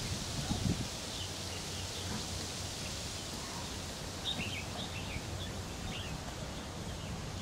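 Outdoor field ambience: a steady hiss over a low rumble, with a few low bumps in the first second. A short cluster of high bird chirps comes about four to five seconds in.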